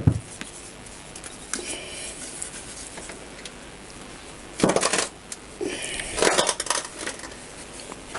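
Metal clanks and scraping as a Honda CBR1000F engine is turned over by hand on the floor: a knock at the start, then two bursts of clattering about halfway through.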